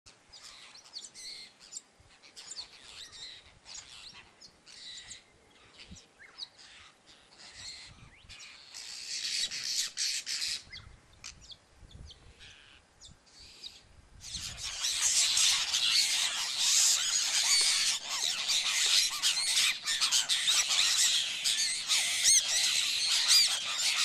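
Flock of happy jacks chattering and squawking, scattered calls at first, then from about halfway through the whole flock calling loudly together without a break.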